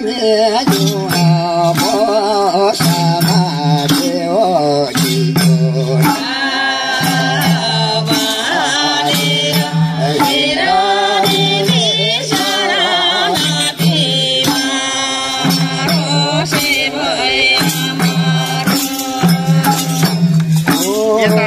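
Nepali Bhailo folk song: voices singing with vibrato over madal hand drums struck in a steady rhythm.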